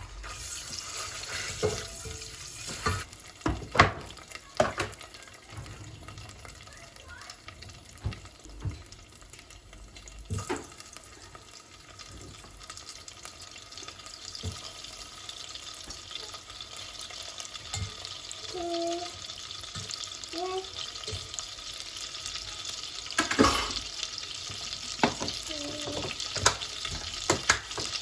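Kitchen chores: clinks and knocks of dishes or utensils, several sharp ones in the first half and a loud one near the end. Water runs steadily from a tap through the latter half.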